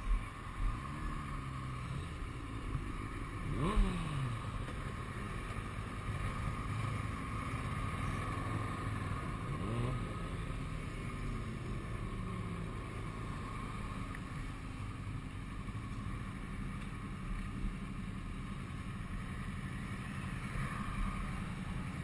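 Motorcycle engines running at low riding speed, with short revs whose pitch rises and falls about 4 and 10 seconds in.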